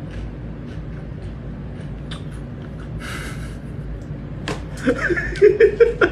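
Scattered light clicks and a brief scratchy rustle of pellet litter as a kitten shifts and digs in a litter tray. Then, from about four and a half seconds in, a person laughing in short quick bursts.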